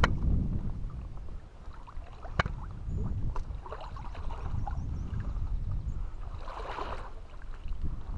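Lake water lapping against shoreline rocks, with wind rumbling on the microphone. Two sharp knocks are heard, one at the start and one about two and a half seconds in, as someone clambers over the rocks, and a brief louder splash or rustle comes near the end.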